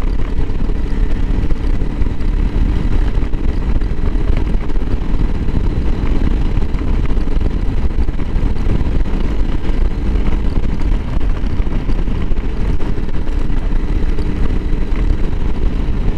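Honda CRF300L Rally motorcycle's single-cylinder engine running steadily while riding along, heard as a constant low rumble.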